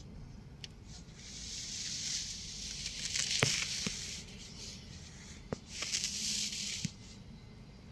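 Rustling hiss in two stretches, the longer one from about a second in to past three seconds, with a few sharp clicks. This is handling noise of the phone as it pans.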